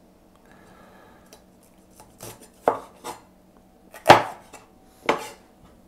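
Cleaver chopping a red bell pepper on a wooden cutting board: about five separate knocks of the blade on the board, unevenly spaced, the loudest about four seconds in.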